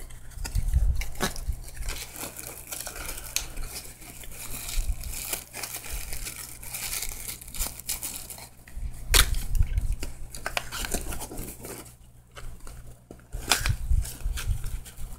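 Hands rustling through cardboard and paper firework packaging: irregular crinkling and scraping of paper and card, with short clicks and a few dull knocks as a small box of snap pops is handled and opened.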